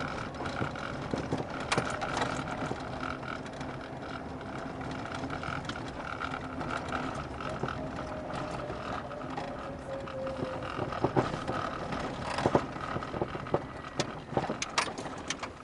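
Car cabin noise while driving over a rough road: steady tyre and engine noise, with hard clicks and knocks from the front suspension, several of them sharp and close together near the end. It is the sign of a front-suspension fault that has not yet been traced, which the owner first suspected was the steering rack.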